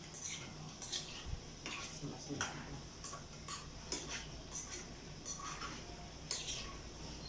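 Metal spoon clinking and scraping against a small frying pan as food is stirred: a series of short, irregular clinks, roughly two a second.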